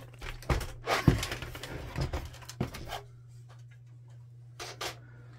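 Plastic printer body knocking and clunking as it is handled and set back down on a table: a run of knocks and thuds in the first three seconds, then two light clicks near the end.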